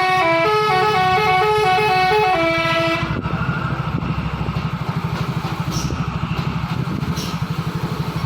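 A dump truck's telolet horn plays a quick stepping multi-note melody, then cuts off about three seconds in. The truck's diesel engine runs on underneath with a steady low pulse.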